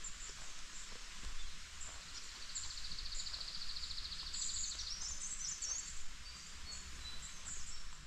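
Outdoor bird and insect ambience: a thin, high insect hum with scattered bird chirps, and a rapid trill lasting about two seconds near the middle.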